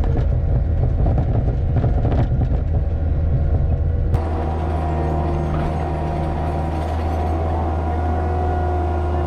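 Skid steer engine running steadily. The sound changes abruptly about four seconds in, at a cut to another take of the same engine.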